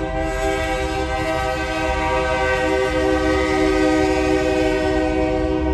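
Union Pacific GP60 locomotive's Nathan K3HA five-chime air horn blowing one long steady chord as the train reaches a grade crossing, over the low rumble of the train.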